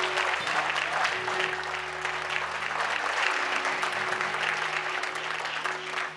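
Congregation applauding over music with long held chords. The clapping fades out near the end.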